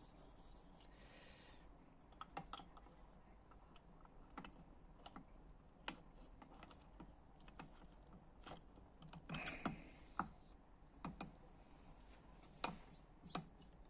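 Faint, scattered clicks and taps of small metal engine parts and hand tools being handled, with a short cluster of clinks and rustling about nine and a half seconds in and the sharpest clicks near the end.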